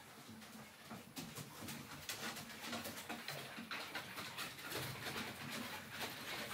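Several dogs moving about on a wooden deck, their claws ticking on the boards, with faint low grumbling sounds now and then.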